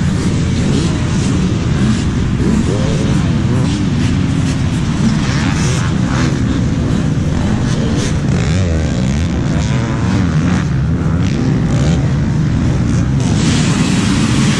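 Several dirt bike engines running and revving on the track together, their pitches rising and falling as riders accelerate over the jumps.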